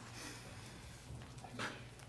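Quiet meeting-room tone: a steady low hum, with a brief soft noise about one and a half seconds in.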